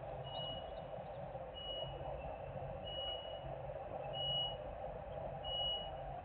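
A vehicle's reversing alarm beeping five times, about once every 1.3 seconds, each beep a single high tone, over a steady machinery drone.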